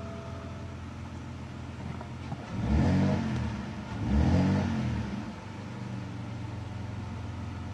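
BMW 525i's N52 straight-six idling, revved twice in quick succession, each rev climbing and falling back, then settling to a steady idle.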